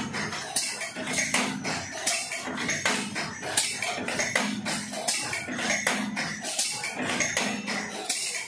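Cupcake liner making machines running, with a rhythmic metallic clatter that repeats a little more than once a second and lighter ticks in between.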